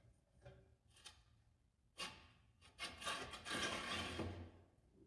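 A knock about two seconds in, then a pine 2x4 scraping and rubbing as it is slid by hand into a steel C-channel under a cast-iron lathe bed for a couple of seconds.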